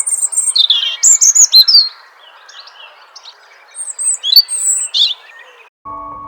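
Wild birds chirping and singing: quick high chirps and warbling phrases, loudest in the first two seconds and again around four to five seconds in, over a faint steady background hiss. The birdsong stops abruptly near the end.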